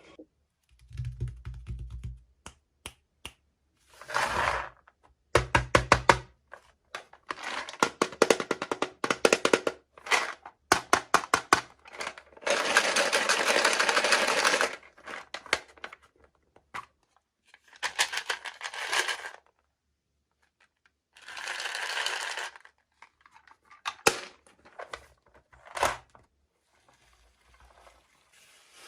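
Plastic toy packaging being handled and opened by hand: crackly rustling in bursts, the longest about halfway through, among quick clicks and taps and a few dull thuds.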